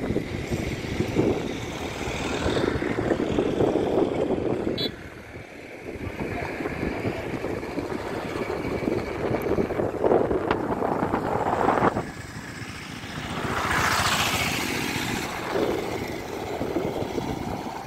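Road traffic going by, several vehicles passing in turn, the loudest passing close about fourteen seconds in.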